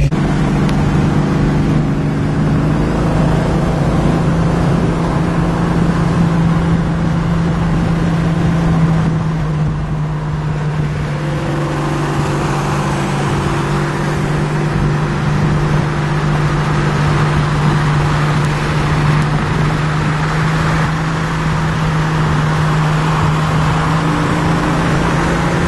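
Engine drone and road noise inside a classic Mopar E-body muscle car cruising at steady freeway speed. A strong low hum holds one pitch throughout, under a steady rush of tyre and wind noise.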